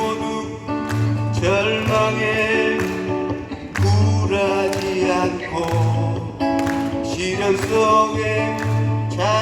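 A monk singing a slow melody in a sweet voice, holding and sliding between long notes over instrumental accompaniment with guitar.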